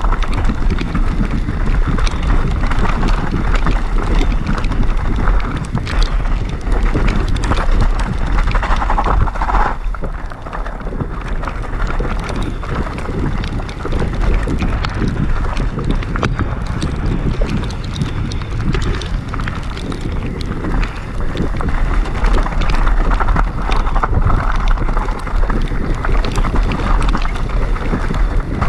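Wind buffeting the action-camera microphone at speed, over mountain-bike tyres rolling on a wet dirt trail and the rattle and knocks of the bike over roots and bumps. The noise drops briefly about ten seconds in.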